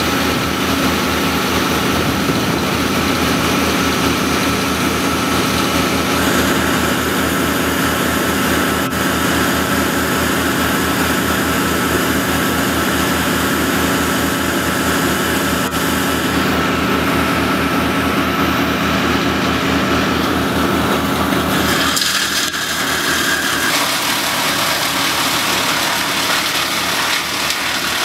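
An engine running steadily at constant speed, with an even low hum and a fast regular pulse; about three quarters of the way through, the low part drops away and the sound changes.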